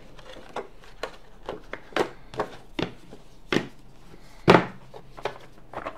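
Cardboard packaging and small plastic parts handled and set down on a desk: a string of irregular light taps and knocks, with one louder knock about four and a half seconds in.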